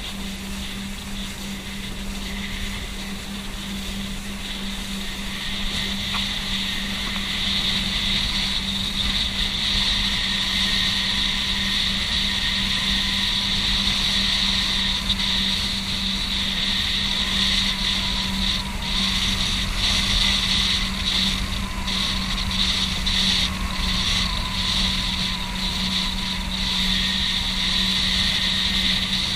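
Boat engine running steadily as the boat cruises, with a broad rushing hiss of wind and water over it. The sound grows louder over the first several seconds, then holds.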